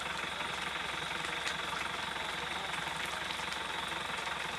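A vehicle engine idling steadily, with faint scattered crackles from the dry grass burning.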